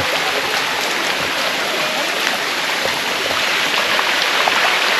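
Water of a shallow waterfall cascade rushing and splashing over the rocks close by, a steady, even rush.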